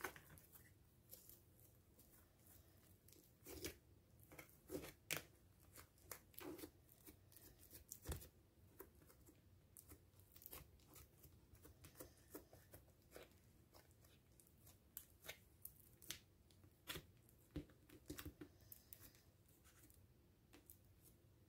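Foamy bubbly slime, made of glue, foam and liquid foam soap, being pressed and smoothed by hand into a plastic tub: faint, irregular crackles and small pops.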